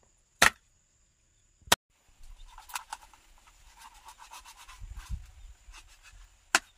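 Meat cleaver chopping raw chicken on a plastic cutting board: three sharp chops, about half a second in, near two seconds and near the end, with quieter tapping and rubbing of the blade on the meat in between.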